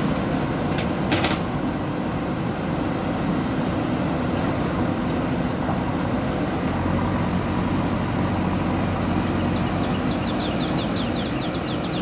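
Diesel engine of a JCB backhoe loader running steadily, with a brief sharp knock about a second in and a quick run of short high chirps near the end.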